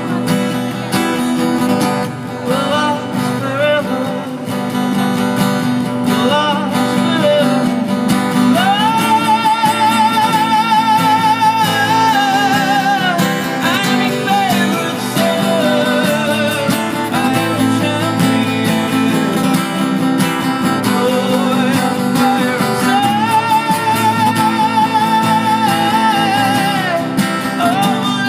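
Live band music amplified through PA speakers: acoustic guitars strumming under a male lead singer, who holds several long notes with vibrato.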